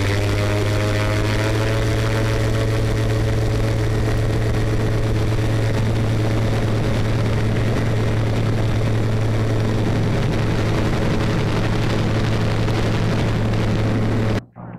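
Calidus autogyro's engine and rear pusher propeller running, heard through a camera mounted on the aircraft: a loud, steady drone over a low hum, its pitch rising slightly in the first couple of seconds. It cuts off suddenly near the end.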